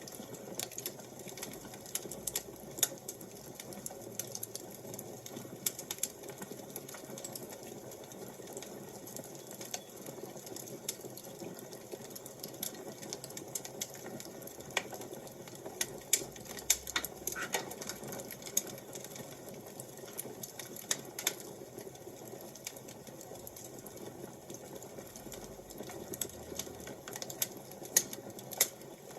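Fire crackling: irregular sharp pops and snaps over a steady low hiss of burning, with a denser run of louder pops about halfway through and again near the end.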